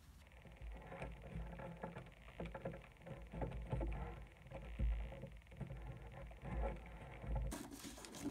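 Thin origami paper being folded and creased by hand: irregular soft rustles and crinkles, with several dull low bumps as the paper is pressed against the table.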